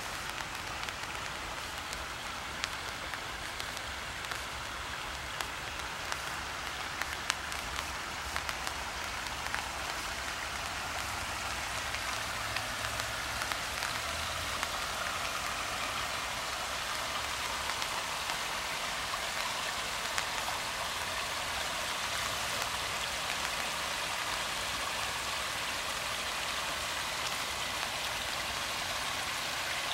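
Steady rain falling on the still water and wet leaves of a wetland pool: a continuous hiss with scattered sharper drips, getting slightly louder about halfway through.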